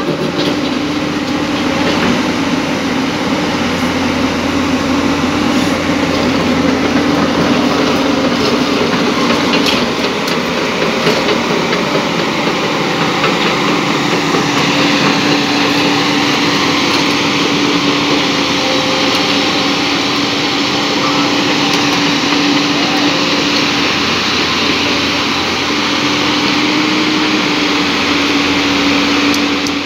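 JCB JS205 crawler excavator's diesel engine running steadily under load, with a steady hum, while the machine moves on its steel tracks with a rattling track clatter.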